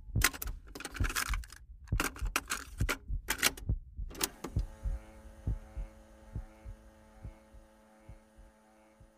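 Keys typing in quick bursts of sharp clicks for about four and a half seconds, then a steady electrical hum with faint ticks a little more than once a second.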